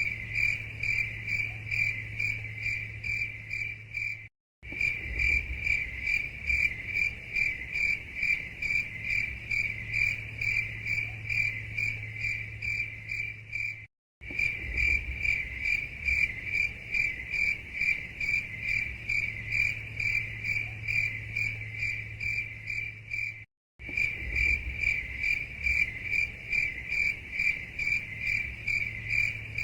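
Crickets chirping in a fast, even, high-pitched pulse train over a faint low hum, cutting briefly to silence three times.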